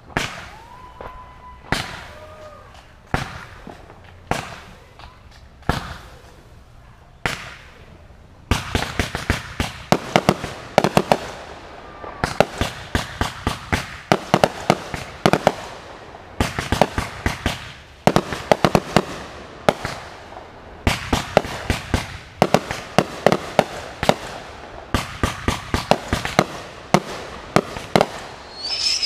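Fireworks display: single loud bangs about every second and a half, then from about eight seconds in a dense barrage of many sharp reports a second.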